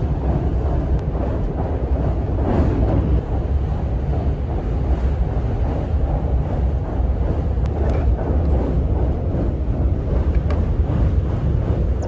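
Interior running noise of the HARUKA limited express train under way: a steady, loud, deep rumble of the running gear and track, with a few faint ticks.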